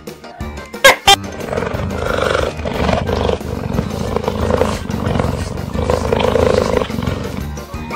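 Background music with a rough, roaring animal sound laid over it in several long pulses, after two short sharp sounds about a second in.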